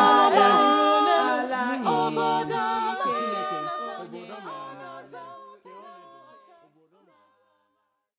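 A cappella vocal quartet of three women and one man singing a gospel song in Igbo in close harmony, fading out gradually to silence about seven seconds in.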